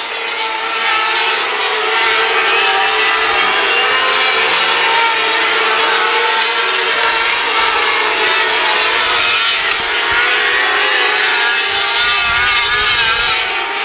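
A field of 600cc micro sprint cars racing, their motorcycle engines held at high revs. Several engines blend into a steady high-pitched whine whose pitch wavers up and down as the cars circle the track.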